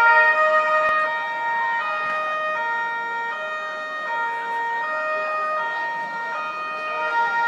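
Two-tone police siren alternating steadily between a lower and a higher note, each held a little under a second.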